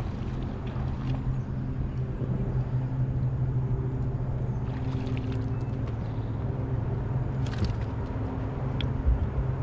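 Steady low hum of a bass boat's motor running. Brief splashes a few seconds in and again near the end as a hooked bass thrashes at the surface while it is reeled in and swung aboard.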